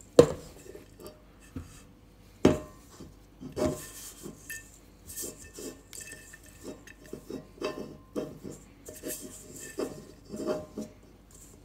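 Hand scraping and rubbing dough and dry crumbs around a stainless steel mixing bowl, with two sharp knocks near the start and about two and a half seconds in, then repeated irregular scraping against the metal.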